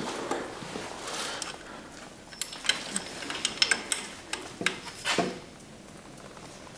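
Hand ratchet clicking in short, irregular runs as bolts on the transfer case are tightened, starting a couple of seconds in and lasting about three seconds.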